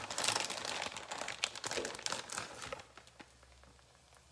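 Plastic bag of shredded cheese crinkling as it is handled, stopping about three seconds in; after that only faint crackling of corn tortillas frying in oil in the pan.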